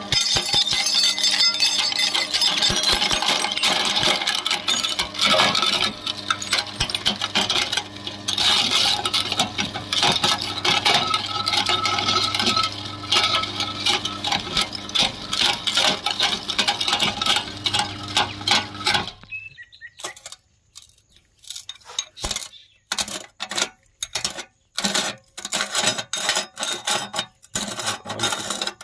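Belt-driven meat grinder crushing a glass light bulb: a dense crunching and crackling of breaking glass over the machine's steady hum. About 19 seconds in, the hum and crunching stop abruptly, leaving scattered sharp clinks and clicks.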